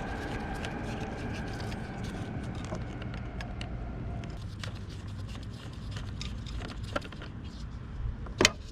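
Small, irregular metal clicks of a bolt being unscrewed with a hand tool, over a steady low background rumble, with one louder click near the end.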